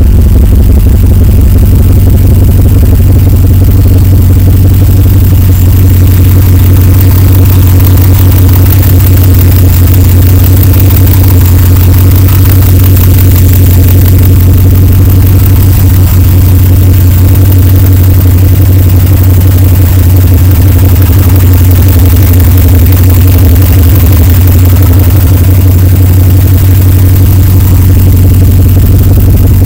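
2009 Chevrolet Silverado's engine idling, loud and steady, with an unchanging low drone and no revving, heard close to the open engine bay.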